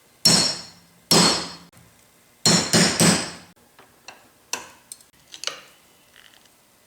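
Hammer blows on metal, driving out the taper pin that holds a gear on the shaft of a Yates American B244 planer's speed control. Four hard, ringing strikes come in the first three seconds, then a few lighter taps.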